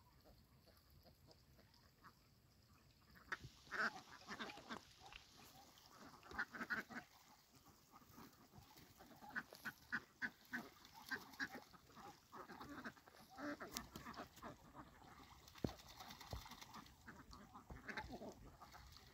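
A flock of domestic ducks quacking faintly on and off, in short scattered calls that begin about three seconds in.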